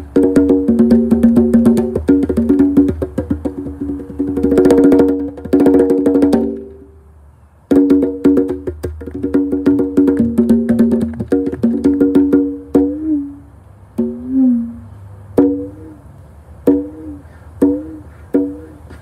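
Pair of conga drums played by hand: fast runs of strokes on the heads, a short stop about six and a half seconds in, then playing resumes and thins out to spaced strokes, a few of them sliding in pitch.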